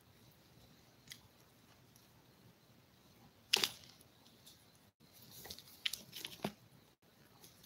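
Toy poodle puppies shifting and settling on soft bedding: faint scattered rustles and clicks, a sharper crackle about three and a half seconds in, and a short run of clicks about two seconds later.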